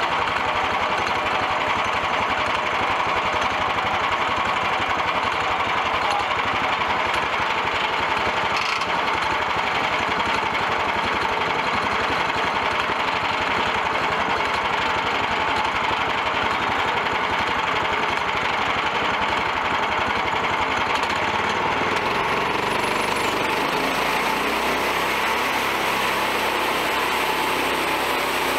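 Portable band sawmill cutting a log: its small gas engine runs steadily under load while the blade saws through the wood. The sound changes noticeably about three-quarters of the way through.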